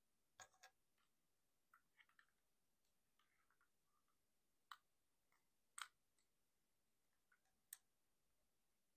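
Scattered sharp clicks of hard plastic toy parts on a Transformers Masterpiece Ratchet figure being unclipped, handled and set down. The clicks are irregular, with a few small ones near the start and the sharpest ones about halfway through and near the end.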